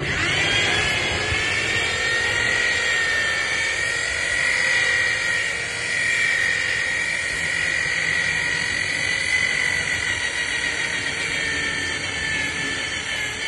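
Corded electric rotary polisher spinning up and then running with a steady high whine as its pad works over a boat hull.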